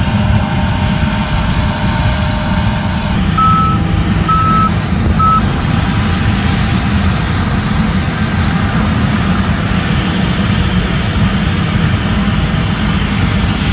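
Wind buffeting the microphone over the steady low rumble of running farm machinery, with a vehicle's reverse alarm beeping three times about three and a half seconds in.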